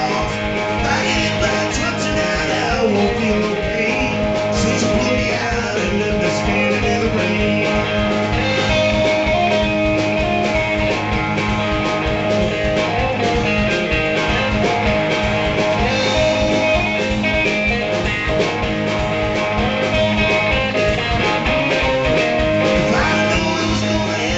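Live blues band playing: electric guitar and a drum kit keeping a steady beat, with a lead part through the frontman's vocal microphone.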